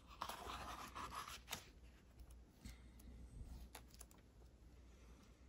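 Faint rustle and soft flicks of paper pages being turned by hand in a large hardcover book, the rustle strongest in the first second or so.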